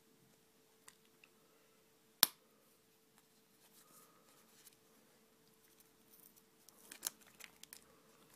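Small plastic clicks and taps of Play-Doh toys being handled: one sharp click about two seconds in, then a quick run of light clicks near the end, over a faint steady hum.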